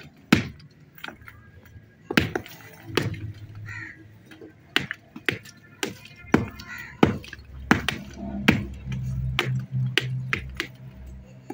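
Hand hammers striking fired-clay bricks, two men breaking broken bricks into ballast on a rubble heap: sharp, irregular knocks, one or two a second, the strikes of the two workers overlapping.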